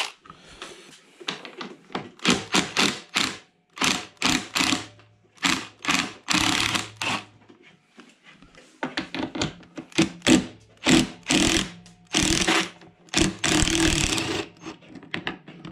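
Power drill with a 10 mm socket running in repeated short bursts, undoing the bolts that hold a dirt bike's seat, with clicks and clatter between runs.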